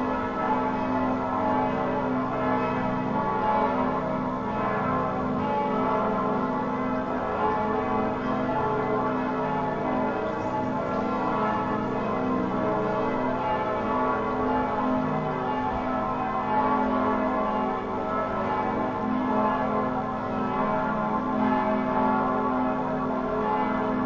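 Bells ringing without a break, their strikes overlapping into a steady wash of ringing tones.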